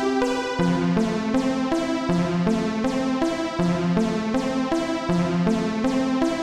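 Electronic music: synthesizer and electric-piano notes in a repeating melodic pattern over a steady beat of about three ticks a second.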